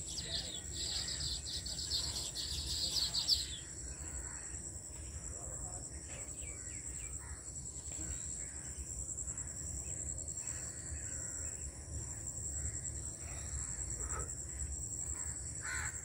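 Birds calling: a fast, high chattering for about the first three and a half seconds, then scattered calls. A steady high-pitched whine runs underneath throughout.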